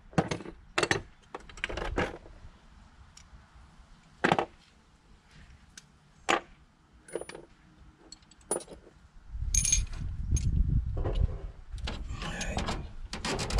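Metal hand tools clinking and clattering in short irregular clicks, as a socket is picked out for a ratchet. About nine seconds in a louder, steady low rumble with rustling joins in.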